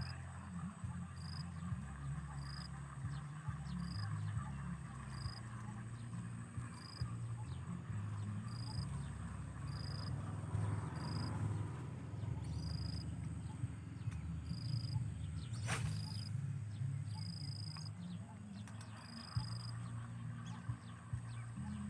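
Insects calling outdoors: one chirps in an even pulse about one and a half times a second over a steady high-pitched insect drone, under a constant low rumble. A single sharp click sounds about sixteen seconds in.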